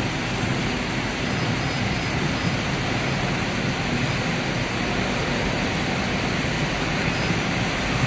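Steady, even whirring noise of LAN-cable twisting machinery running on the factory floor, with a faint low hum under it.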